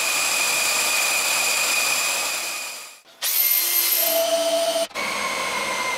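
Cordless drill running steadily as it drives the welding table's elevating gear, chains and screw shafts. It cuts out about three seconds in and comes back at a higher pitch. After a brief break near five seconds it runs again steadily.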